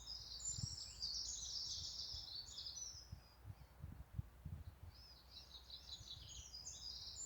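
Birds singing in quick, chattering high-pitched phrases, in two stretches with a short lull about three seconds in, over faint background noise. A few soft low thumps sit underneath.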